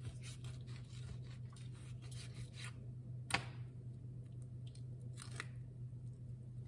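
Knife cutting around an avocado through its skin: a run of short, crisp cutting and scraping sounds for the first few seconds, a single sharp knock a little after the middle, then a brief crackle as the avocado is twisted apart.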